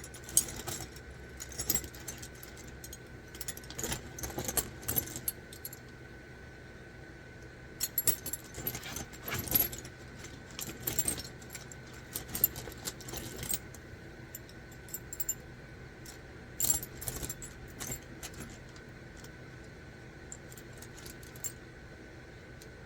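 Loose metal sockets and hand tools clinking and clattering in irregular bursts, being rummaged through in search of an 11 mm socket; the clatter thins out near the end.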